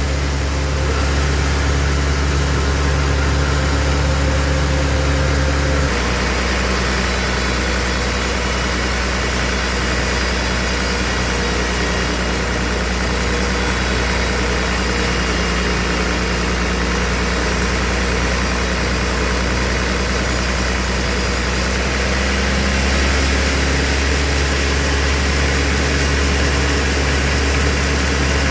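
Band sawmill machinery running steadily with a deep hum. From about six seconds in a brighter, hissier sound is added on top, fading back about twenty-two seconds in.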